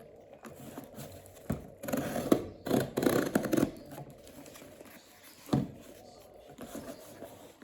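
Clicks and clattering from a retro calculator with typewriter-style mechanical keys being handled: a click about a second and a half in, a dense run of clatter over the next two seconds, and a single knock near the end.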